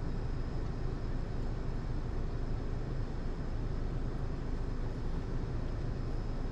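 Steady low hum of a 2023 Chevrolet Colorado ZR2's 2.7-litre turbo four-cylinder idling in park, heard from inside the cabin.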